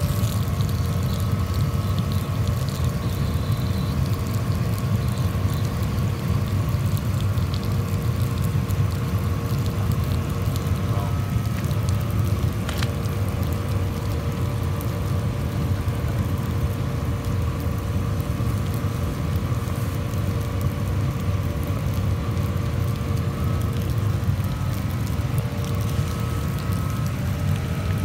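Sapphire Scientific cleaning machine and its diesel water heater running with a steady low hum and a few constant tones, while hot water gushes from the outlet hose and splashes onto the pavement.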